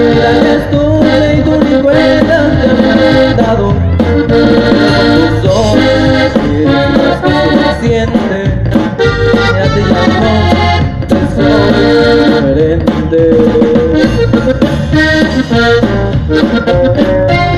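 Live norteño band playing loud: an accordion carries the melody, with saxophone and a steady rhythm section beneath it, and little or no singing.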